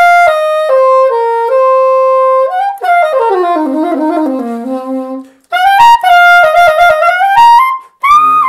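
Saxophone playing a slow melodic phrase ornamented with a descending appoggiatura: a G sharp struck and dropped at once a half step to G. The phrase falls to a low note and breaks off about five seconds in, and a new phrase begins right after.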